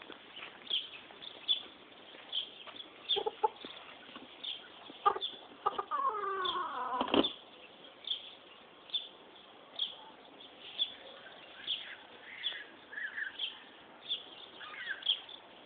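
A rooster crows once, about six seconds in: a loud call falling in pitch over a little more than a second. Short chicken calls come near the end, over a steady run of short high chirps.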